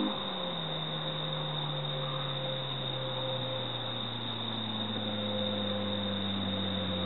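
Honda S2000 four-cylinder engine through a T1R 70R 70mm resonated single catback exhaust, dropping back from a held rev just after the start and then idling with a steady low hum.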